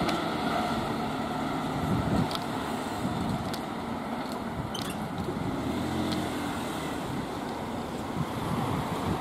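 Keihan 3000-series electric train running through a station at speed: a steady rumble of wheels on rail with motor hum, and a few short high clicks.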